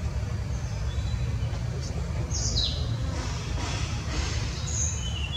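Birds chirping: a few quick high calls falling in pitch about halfway through, then short high notes near the end, over a steady low rumble.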